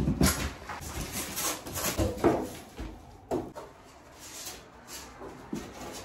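Irregular hammer knocks and bumps against a wall. They come thickest in the first couple of seconds, then thin out, with one sharper knock a little past three seconds.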